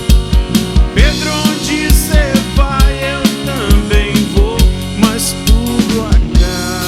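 Live rock band playing a song: a drum kit keeps a steady beat under a lead melody line that bends and slides in pitch from about a second in.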